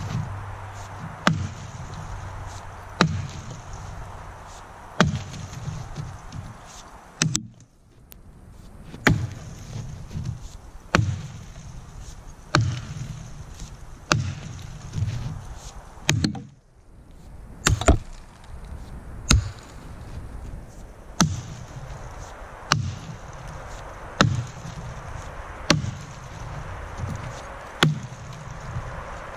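Axe chopping into a downed log, one stroke about every second and a half. Each stroke is a sharp chop into the wood, and they keep an even rhythm.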